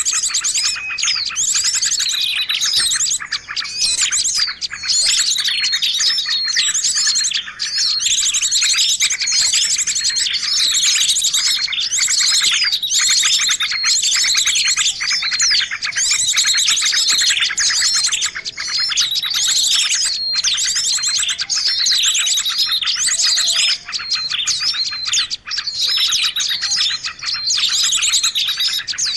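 Busy, unbroken chorus of many small birds chirping, trilling and warbling over one another, high-pitched and loud: a bird-luring (pikat) recording meant to be noisy enough to draw small birds in.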